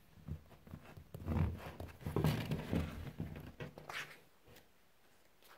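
A spiral-bound sketchbook handled on a table: irregular low knocks and thumps, then pages rustling as they are flipped about four seconds in.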